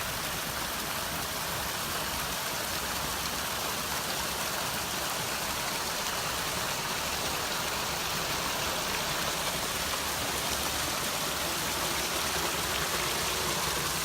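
A small stream running: steady rushing water.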